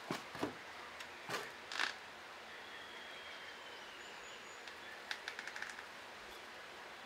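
Quiet outdoor ambience with a steady hiss. A few short rustling knocks come in the first two seconds, then a faint thin whistle, then a quick run of about eight clicks a little after five seconds in.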